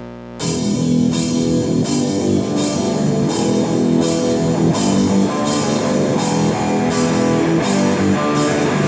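Rock music with drum kit and guitar, starting suddenly about half a second in, with a steady beat of roughly one drum hit every two-thirds of a second.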